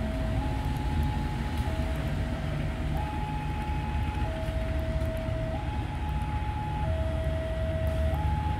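A two-tone siren alternating evenly between a high and a low note, each held a little over a second, over a steady low engine rumble.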